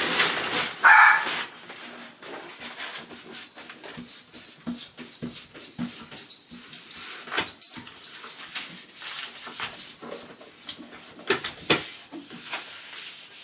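A small dog barks and whimpers, with one loud yip about a second in, over scattered rustling and tapping from handling.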